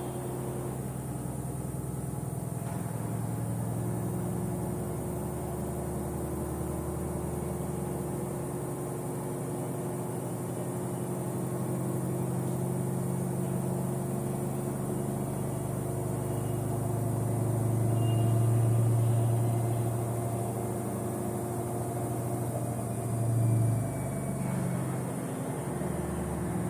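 Samsung front-load washing machine running, its motor and drum humming steadily. The hum swells louder about two-thirds of the way through, and there is a brief loud bump near the end.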